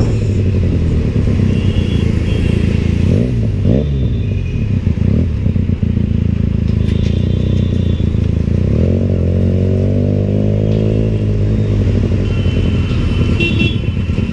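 Benelli TNT 300's parallel-twin engine through an ixill aftermarket exhaust, with a deep note while riding in traffic. There are quick rev blips up and down a few seconds in, and a longer rise and fall in revs about nine to eleven seconds in.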